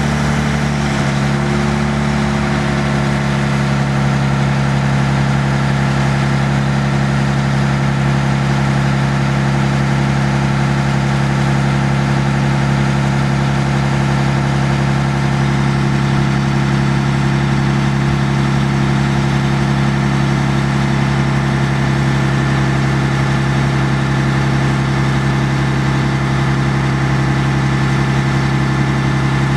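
The Mercedes-Benz six-cylinder turbo diesel of a John Deere 400D articulated haul truck running at a steady idle, its pitch and loudness unchanging.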